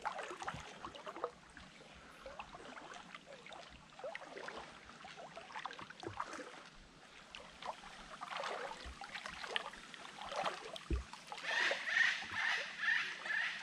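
Shallow creek water sloshing and splashing around a person's legs as they wade upstream, in irregular strokes. A repeated high chirping call, about four to five a second, starts near the end.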